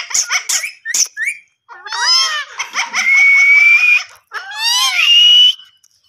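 Indian ringneck parakeet calling: a quick run of short chirps, then a few rising calls, then two long, loud calls, each held on one steady high pitch for about a second, cutting off sharply near the end.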